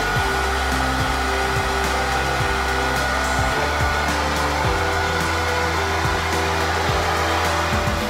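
Handheld hair dryer running steadily, blowing air at an even level throughout.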